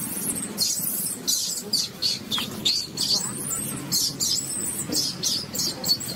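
Baby macaque giving a rapid string of short, high-pitched squeaks, some sliding down in pitch, while an adult monkey grabs and holds it down.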